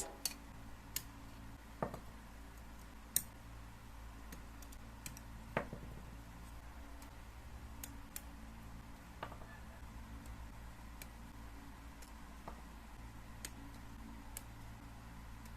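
Faint, irregular clicks and taps of hard plastic model-kit parts being handled and fitted together, about a dozen spread out over a low steady hum.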